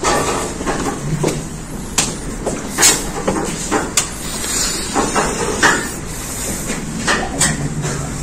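Steady room hiss with scattered sharp knocks and clicks, roughly one a second at irregular intervals.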